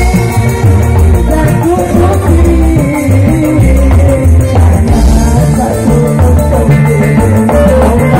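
Loud live band music from electronic keyboards and an electric lead guitar, with a heavy bass line, a bending melody on top and a steady fast percussion rhythm.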